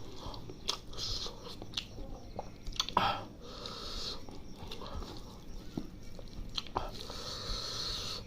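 A person chewing a mouthful of rice and chicken liver curry close to the microphone, with wet mouth sounds and scattered small clicks.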